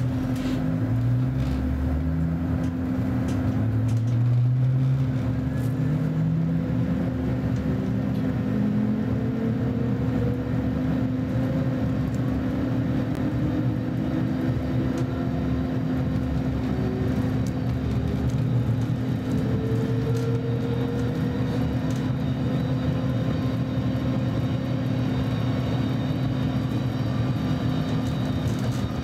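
Interior sound of a Roslagsbanan X10p electric commuter train under way: the traction motors' whine climbs in pitch as the train picks up speed over the first few seconds, then the ride settles into a steady hum over the rumble of wheels on rails, with a few light clicks.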